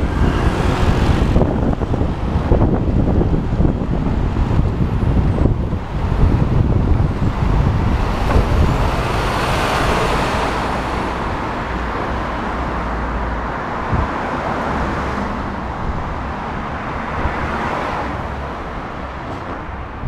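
Road traffic passing close by, with wind rumbling on the bike-mounted microphone; a truck passing alongside swells louder about halfway through.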